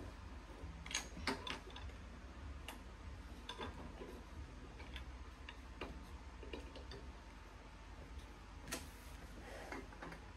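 Pencil on paper as someone draws at a table: irregular light ticks and taps, the loudest pair about a second in.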